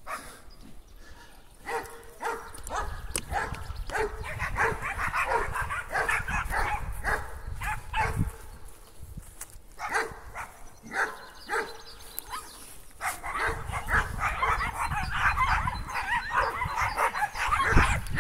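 Dog barking and yipping in repeated short bouts, busiest in two long spells, over a low rumble.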